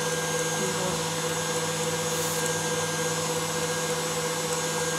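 Electric mixer running steadily as it whips egg whites and apple purée, a constant even hum that holds one pitch.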